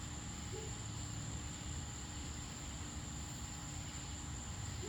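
Outdoor ambience: a steady, unbroken high-pitched insect trill over a low background rumble, with no distinct events.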